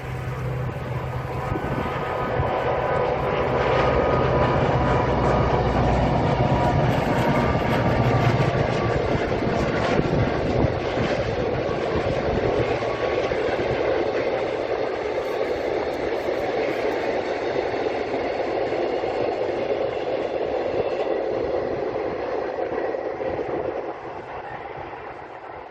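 A freight train of cement tank wagons hauled by a diesel locomotive passing. The locomotive's low engine hum is strongest in the first several seconds, then the steady rolling noise of the wagons on the track carries on and eases off near the end.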